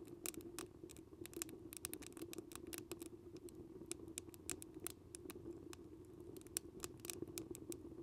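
Wood fire crackling in the feed opening of a cement rocket stove: many irregular small pops and snaps over a faint steady low hum.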